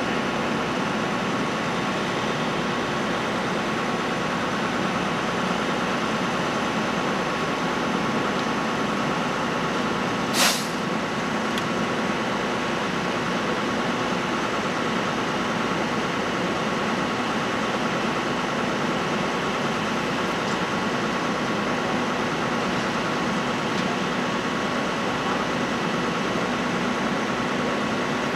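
Steady running of idling emergency vehicle engines, with a thin constant whine over the hum. A short, sharp hiss comes about ten seconds in.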